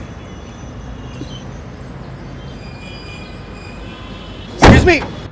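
Small car's engine idling with a steady low hum heard from the cabin, and a short loud sound about four and a half seconds in.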